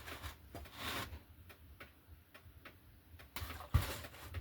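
Light, scattered clicks and knocks from handling chainsaw parts on the bench, with a sharper knock near the end.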